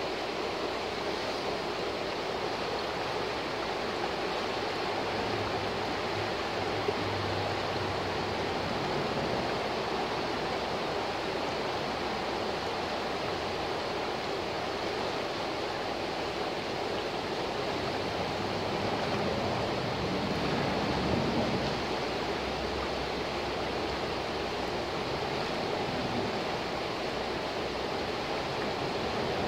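A fast, shallow river rushing and splashing over rocks in a riffle, a steady, even rush of water.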